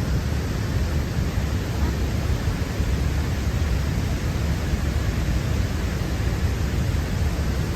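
Large waterfall rushing close by: a steady, dense noise, heaviest in the low end and unchanging throughout.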